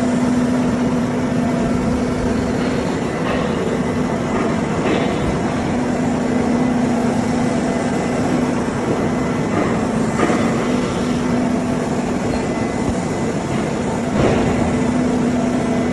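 Electric crawler muck loader running with a steady mechanical hum, with a few sharp knocks scattered through it.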